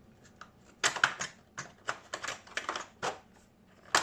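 A steel wire with small plastic cylinders being worked through a hole in a foam model-plane fuselage: a run of short clicks and scraping rustles, the sharpest click near the end.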